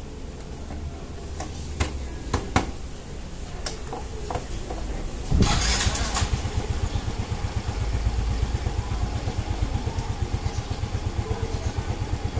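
A few light clicks, then about five seconds in a Yamaha Mio Soul i 125 scooter's single-cylinder four-stroke engine starts with a short burst and settles into a steady, evenly pulsing idle.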